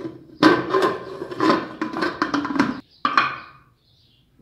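Aluminium pressure cooker lid scraping and clanking against the rim of the pot as it is fitted and twisted shut, the metal ringing. A last separate clank comes about three seconds in.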